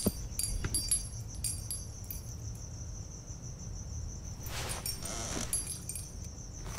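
Crickets chirping steadily in a night ambience, with a few small clicks and jingles near the start and a brief rustle about five seconds in.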